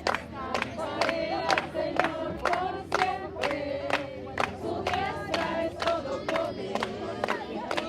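A group of people singing together with steady rhythmic hand clapping, about two claps a second.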